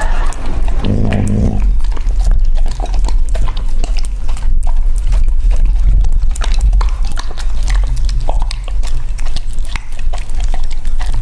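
Close-miked eating by a large husky-type dog at a ceramic plate: wet chewing, licking and smacking with many quick irregular clicks of teeth and food against the plate, over a steady low hum. A kitten eats from a small dish beside it.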